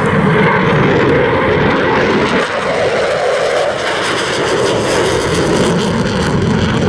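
Eurofighter Typhoon FGR4 fighter's twin EJ200 jet engines, loud and steady as the jet flies a high-speed pass at near 600 miles an hour, with a brief dip about two and a half seconds in.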